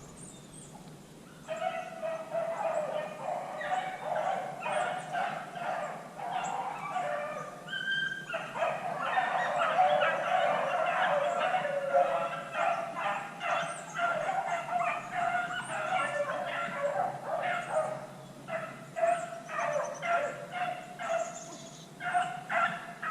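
A pack of rabbit-hunting beagles baying in full cry on a running rabbit, many voices overlapping in a constant chop of yelps. The pack breaks in about a second and a half in and keeps up the din nearly to the end.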